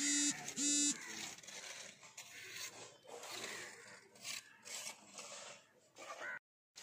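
A crow calling twice, two short harsh caws about half a second apart, followed by faint scraping and rubbing noises.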